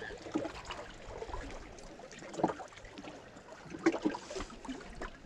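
Faint lapping and trickling of water along shoreline rocks, with a few small clicks and rustles from hands handling a marabou jig and fishing line.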